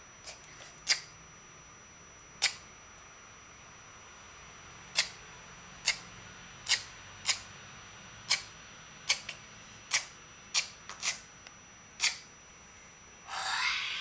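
Thin wooden plank blocks clacking sharply as they are picked up and set down one by one, about fifteen separate clicks at irregular intervals. A short hiss comes near the end.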